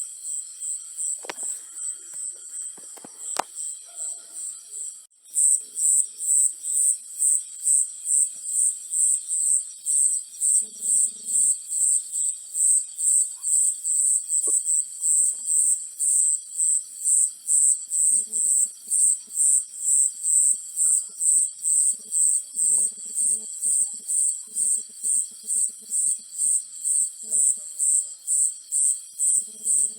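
High-pitched insect chirping, a cricket-like pulse about twice a second, which gets louder about five seconds in. Fainter low pulsing calls come and go underneath.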